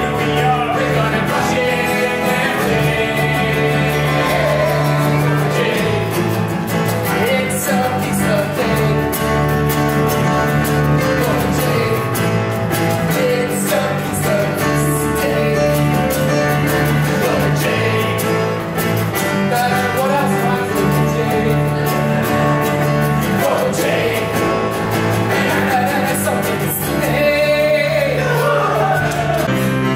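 Live musical theatre song: a man singing with acoustic guitar and keyboard accompaniment.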